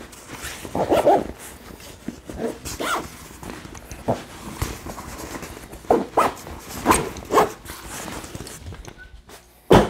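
A padded nylon rifle bag being handled and moved: irregular short bursts of rustling fabric and strap hardware, ending in a single loud thump near the end.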